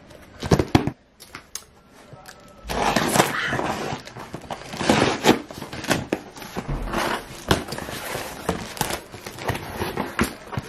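A cardboard shipping box being opened by hand: a few knocks, then packing tape scraped and torn and cardboard flaps pulled open, with irregular scratching and crinkling from about three seconds in.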